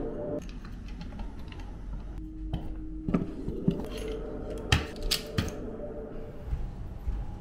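Wooden shoe locker being shut and locked with its key: a string of sharp clicks and clacks from the door and the key lock, about halfway through, over a low steady hum.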